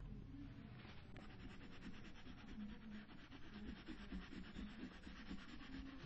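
Crayon scribbling on paper, colouring in a drawing. About a second in, the crayon settles into fast, even back-and-forth strokes rubbing across the sheet.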